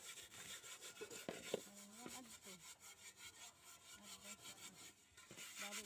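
A soot-blackened metal pot lid scrubbed back and forth against wet gritty sand on concrete, scouring the soot off: faint, rapid, rhythmic scraping strokes. The strokes pause briefly near the end.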